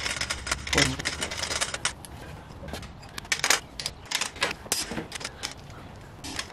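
Irregular metallic clicks and clinks of a long torque wrench ratcheting on the head stud nuts of a 7.3 IDI diesel's cylinder head as they are torqued down in sequence, with the socket clinking onto each nut.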